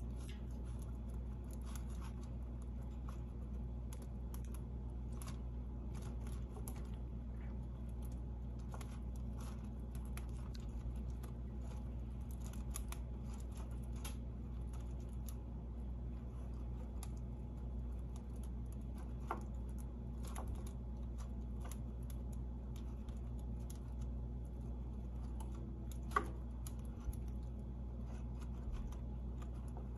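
A chinchilla gnawing and shredding a woven apple-wood chew toy: quick, irregular crunching clicks of its teeth on the dry wood. The clicks come thickest in the first half, and a sharper crack comes near the end.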